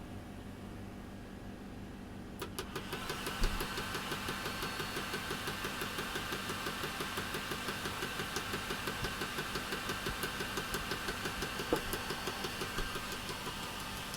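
Stage hazer machine switched on about two and a half seconds in, running with a steady hiss and an even mechanical pulsing about four times a second that dies away near the end.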